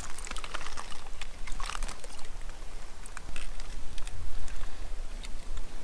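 Water trickling and lapping at the river's edge over a steady low rumble, with a few light clicks and ticks scattered through it.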